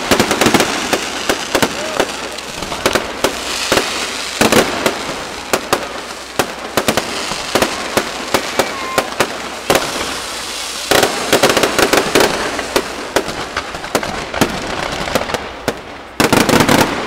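Fireworks going off: a rapid, unbroken string of sharp bangs and crackles from rockets and aerial bursts. Denser flurries come several times, the last just before the end.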